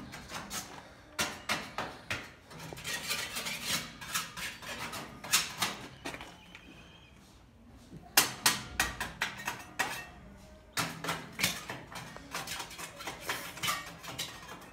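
Metal hand scraper scraping flaking paint off a metal window grille in quick, short strokes, several a second, with a pause of about two seconds in the middle.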